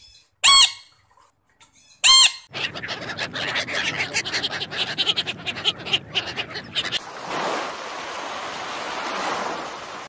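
African grey parrot giving two short, loud squawks that rise and fall in pitch, about a second and a half apart. They are followed by several seconds of fast crackling noise that gives way to a steady hiss.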